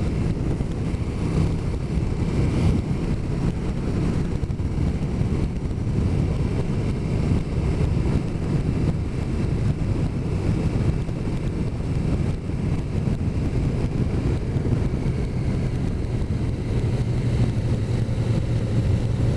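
Motorcycle engine running steadily at cruising speed, with rushing wind noise over it.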